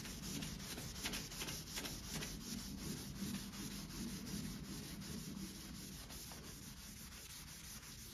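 Hand wet-sanding: 1000-grit sandpaper on a sponge block rubbed back and forth in repeated strokes over the wet single-stage paint of a truck hood, a soft scratchy rasp that grows slightly quieter in the second half.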